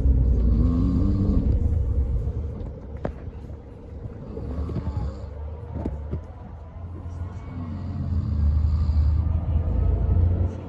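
Scania K440 coach's 13-litre six-cylinder diesel engine running with a deep rumble. It is loud at first, eases off through the middle and builds again near the end.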